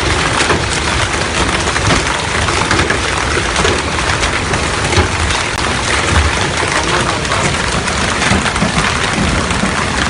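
Hailstorm: hail and heavy rain pelting down in a loud, steady hiss thick with countless sharp hits.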